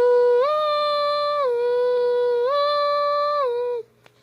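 A person humming an imitation of a Klaxon CS8 siren: two notes alternating low and high, each held about a second. It breaks off shortly before the end.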